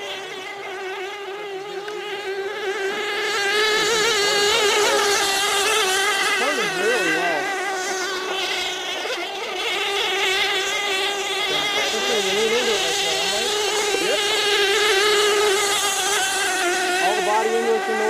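Radio-controlled tunnel hull model boat's small two-stroke engine screaming at high revs as the boat runs flat out on the water, a steady high-pitched buzz whose pitch wavers slightly. It grows louder about three seconds in.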